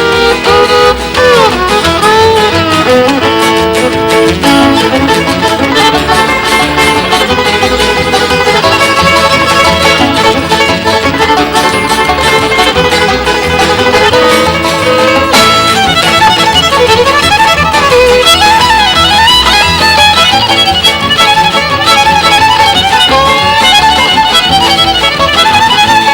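Country string band instrumental with a fiddle playing the lead, sliding between notes, over strummed guitars and double bass.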